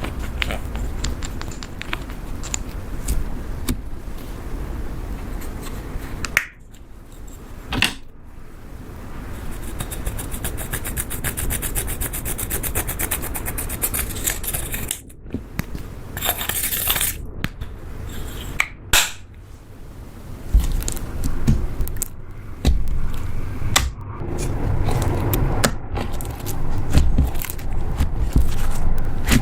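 Slime being handled by hand: a run of sticky clicks, pops and crackles, with a stretch of rapid, closely spaced clicking about ten seconds in.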